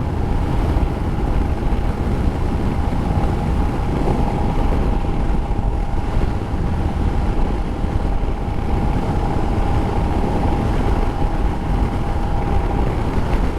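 Motorcycle cruising at a steady road speed: a low engine drone and rushing wind on the rider's microphone, with a faint steady whine over them.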